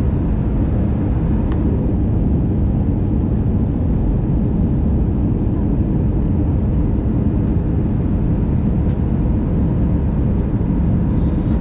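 Steady low rumble of an Airbus A319 passenger cabin in flight: engine and airflow noise heard from a window seat beside the wing, with a faint steady hum under it, during the descent to land.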